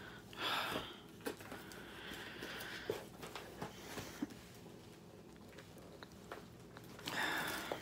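Cardboard box rustling and scraping in short stretches, with a few light taps, as a canvas that is stuck inside is worked out of the tight-fitting box by hand.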